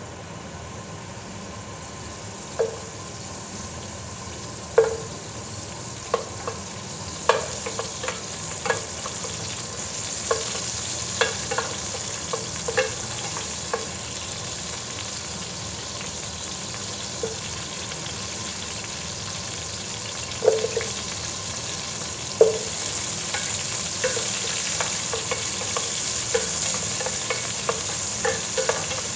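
Garlic cloves and onion pieces dropped one at a time into an aluminium pot of hot oil, each landing with a sharp clink that briefly rings the pot, over a sizzle that grows louder. Near the end a wooden spatula stirs them, tapping the pot in quicker small knocks.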